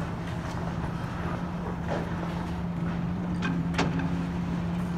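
Kobelco excavator's diesel engine running steadily under load as its bucket tears into a building's wooden roof framing, with sharp snaps and crashes of breaking timber about two seconds in and twice in quick succession near four seconds, the last the loudest.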